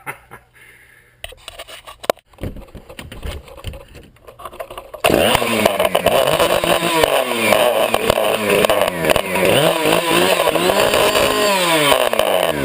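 A few faint knocks, then a chainsaw's two-stroke engine, running with no chain on the bar, comes in loud about five seconds in and is revved up and down over and over.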